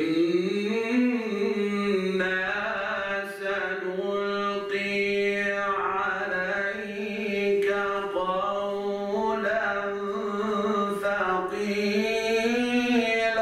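A man's voice reciting Quranic verses in melodic chanted tilawa style: long held notes with slow rises and falls in pitch, drawn out in one continuous phrase.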